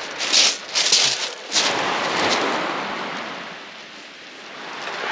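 Boots crunching on shingle pebbles in four heavy steps during the first second and a half. Then small waves wash up the shingle beach, dying away and swelling again near the end.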